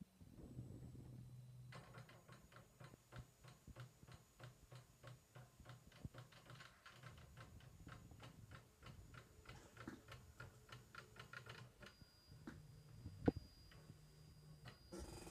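Stepper motors of a homemade 3D printer built from scanner and bubble-jet printer mechanisms, running a print file with no head fitted. A faint low hum gives way to a long run of rapid ticking, several ticks a second, as the axes make short stepped moves. A single sharp click comes near the end.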